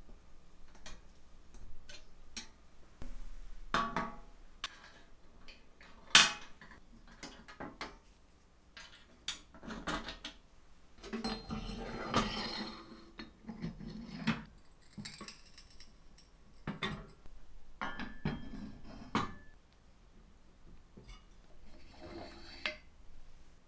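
Metal parts of an antique cast-iron potato peeler with a perforated steel drum clinking and clicking as it is reassembled with hand tools: a run of short sharp knocks, the loudest about six seconds in, and a longer scraping rattle around halfway through.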